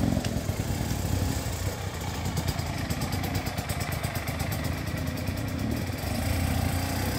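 Enduro dirt bike engine running with a steady low drone.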